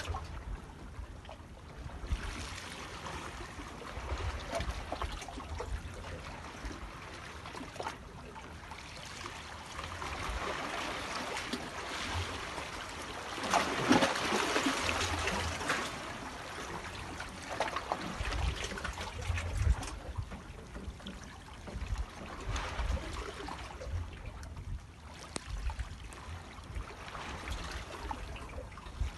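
Water trickling and splashing, louder for a couple of seconds about halfway through, with low bumps now and then.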